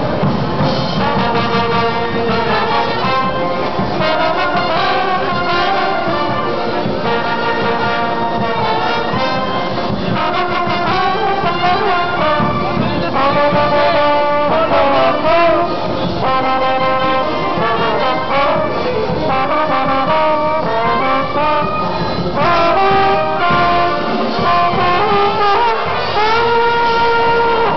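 Slide trombone played up close: a lively melody of quick notes broken by a few held tones.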